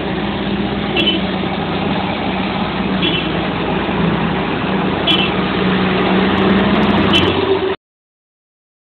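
Huddig 1260 backhoe loader's diesel engine running steadily, with a short high chirp repeating about every two seconds. The sound cuts off abruptly near the end.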